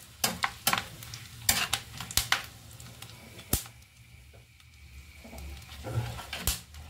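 Metal spatula scraping and clinking against a metal kadai while whole spices (cumin, bay leaf, dried red chillies, black peppercorns) sizzle gently in hot oil, the tempering stage of a curry. The clinks come irregularly, the sharpest about three and a half seconds in.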